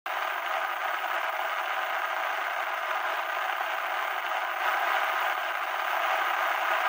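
Old-television static sound effect: a steady, even hiss that cuts in abruptly, with nothing below a fairly high floor.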